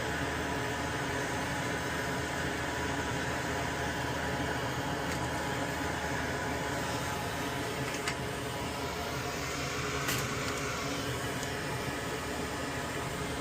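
Steady whir of a small electric blower or fan running on the workbench, with two faint clicks about eight and ten seconds in.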